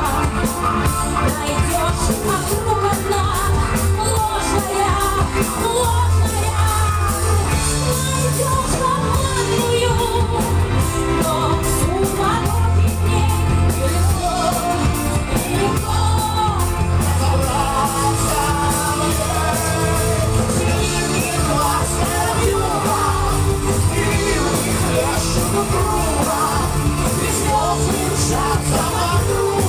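Live rock cover band playing a song with a singer, over a steady drum beat and bass line.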